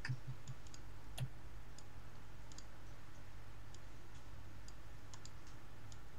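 Computer mouse clicking: scattered light clicks, with one stronger click about a second in, over a steady low hum.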